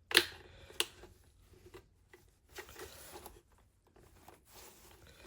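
Clicks and scrapes of a Pure Siesta Rise DAB radio's casing being handled and worked apart: two sharp clacks within the first second, then faint scattered taps and scrapes.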